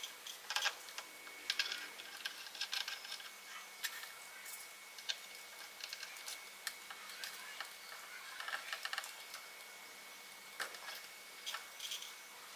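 A plastic RC plane propeller being fitted onto its motor shaft by hand and the prop nut tightened with a metal rod: irregular light clicks and taps, some in quick clusters.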